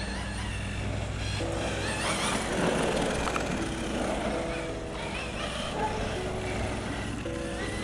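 Laegendary Thunder 1/10 brushless RC truck running on a 2S battery as it drives off down the road, its motor whining up and down with the throttle. Background music with held notes plays over it.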